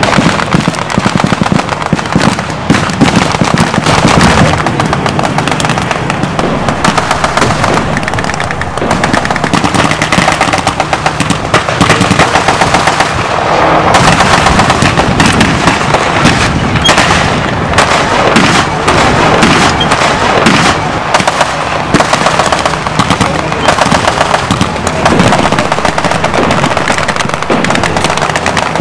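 Sustained blank-firing machine-gun and rifle fire in a staged infantry battle: long rapid strings of shots with single shots between, going on without pause.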